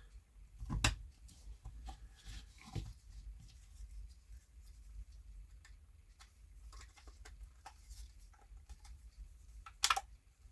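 Small clicks and rustles of plastic parts being handled as an electric pencil sharpener's housing is fitted back together, with a sharp click about a second in and a louder click near the end.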